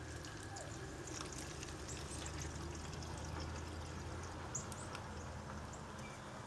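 Lamp oil pouring from a plastic jug through a small funnel into a hurricane lantern's fuel tank, a steady trickle.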